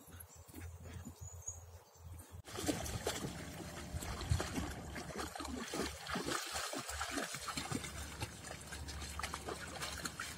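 Water sloshing and splashing as a husky and a German Shepherd–Malinois cross wade through shallow lake water, a steady run of small splashes. It begins suddenly a couple of seconds in, after a quieter stretch.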